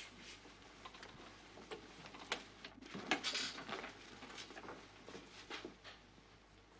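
Soft, irregular snips, clicks and rustles of a haircut: the scissors and comb of a barber at work.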